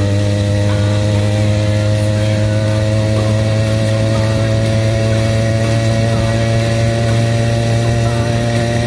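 80cc BikeBerry two-stroke engine on a motorized bicycle running at a steady cruising speed, holding an even note with no breaks.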